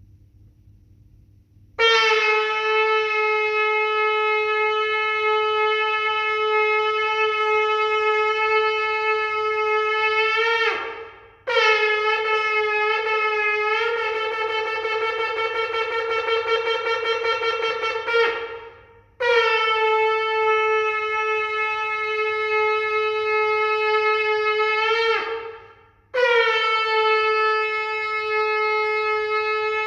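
Shofar blown in four long blasts, each on one steady note that bends down in pitch as it dies away. The second blast is broken by short gaps near its start and then wavers; the last is still sounding at the end.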